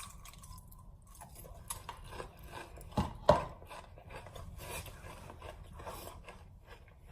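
Utensils clinking and scraping against a bowl or dish, with small clicks throughout and two sharper knocks about three seconds in.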